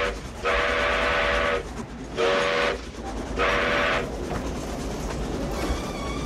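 Steam locomotive whistle blowing three blasts, each a chord of several notes: the first about a second long, the next two shorter. Beneath them runs the steady rumble of the moving train.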